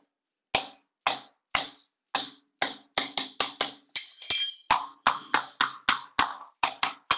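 Hand hammer striking repeatedly at the bare concrete floor, about twenty sharp knocks that come faster later on, about three a second.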